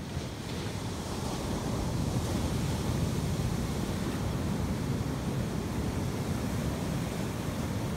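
Ocean surf breaking and washing onto the beach, swelling over the first couple of seconds and then rushing steadily, with wind rumbling on the microphone.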